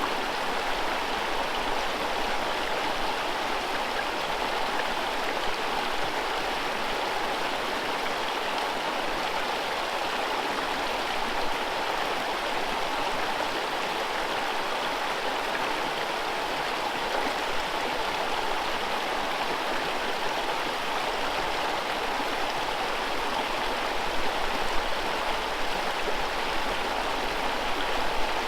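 Forest river running over whitewater rapids: a steady, even rush of water.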